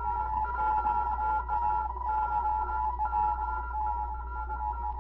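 Opening signature sound of a 1939 radio drama: several high steady tones sounding together, some breaking off and coming back at uneven moments, over a constant low hum from the old recording.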